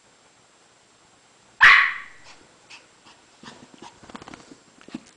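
A Maltese puppy gives one sharp bark about a second and a half in, followed by faint scattered rustling and clicking as she moves about under a blanket.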